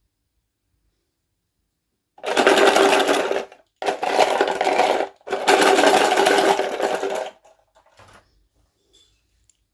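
A small motor whirring in three bursts, the last one longest, with short breaks between them.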